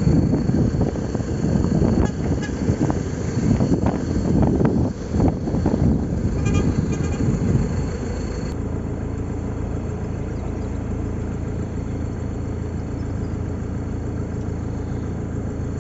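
Engine running, with rough, uneven gusty noise over it for the first half; after a sudden change about halfway through it settles into a steady low drone.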